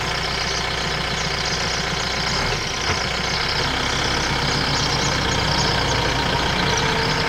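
Motor vehicle engine running steadily with a low rumble, at an even level throughout.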